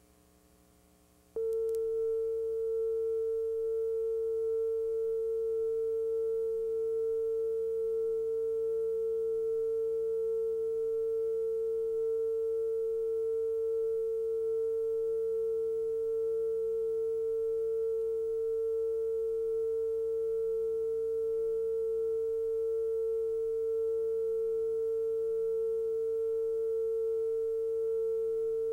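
Steady line-up test tone that plays with colour bars at the head of a videotape: a single pure mid-pitched tone held at constant level. It starts abruptly about a second in and cuts off sharply at the end.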